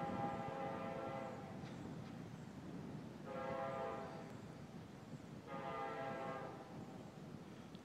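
Distant multi-chime air horn of Union Pacific SD70ACe locomotive 8497, several notes sounding together. A long blast ends about two seconds in, and two more blasts of about a second each follow, around three and five and a half seconds in.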